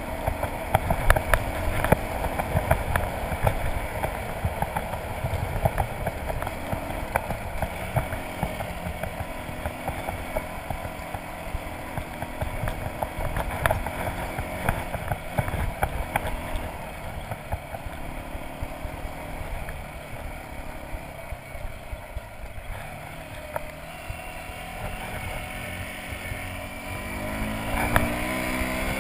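Motorcycle engine running under way on a rough gravel track, its pitch wandering with the throttle and climbing as it revs up near the end, over wind rumble on the microphone and many small knocks and clicks from the rough surface.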